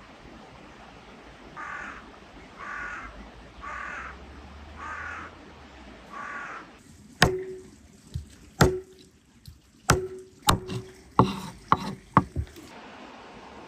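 A crow cawing five times at an even pace, about once a second. It is followed by about eight sharp knocks of a large knife chopping through a fish onto a wooden cutting board, each with a short ring.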